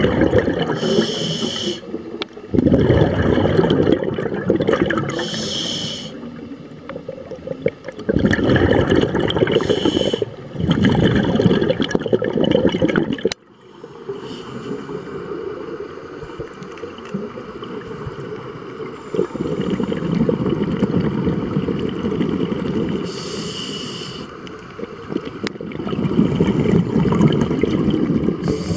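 Scuba diver breathing through a regulator underwater: a short hissing inhale, then a long rush of exhaled bubbles, repeating every few seconds.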